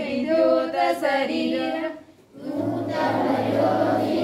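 A group of schoolgirls singing a song together in Odia. The singing breaks off briefly about two seconds in, then resumes.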